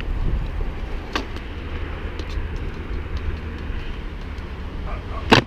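Wheels of a cut-down longboard (a coffin-shaped skateboard) rolling on concrete with a steady low rumble. There is a light click about a second in, and a loud sharp clack of the board striking the concrete near the end.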